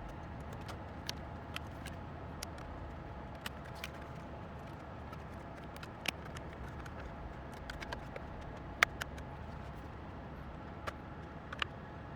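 Scattered light clicks and taps of small hard parts and tools being handled during laptop disassembly, at irregular intervals, the sharpest about nine seconds in, over a steady low hum.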